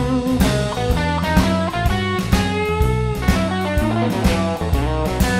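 Blues-rock music with electric guitar and a steady drum beat, instrumental with no singing.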